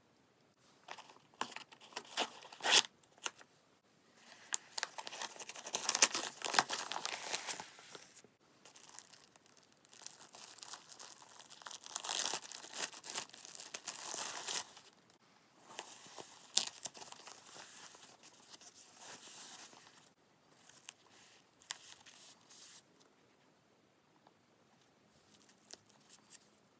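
Packaging being opened by hand in irregular spurts of tearing and crinkling. A brown paper padded mailer is slit open with a utility knife, then a clear plastic bag rustles and crinkles as it is pulled open. Quieter handling follows near the end.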